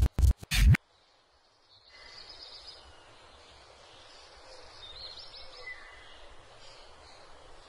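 Loud stuttering digital glitch sound effects in the first second, several abrupt bursts that cut off sharply. After a brief silence comes a steady quiet hiss of room ambience with faint birds chirping outside.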